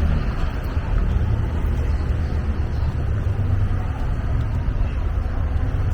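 Steady low rumble of outdoor street noise, with no distinct events.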